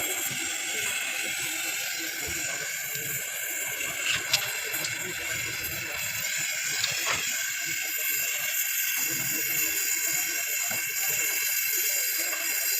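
Gas welding torch flame hissing steadily, with a couple of light metallic taps partway through.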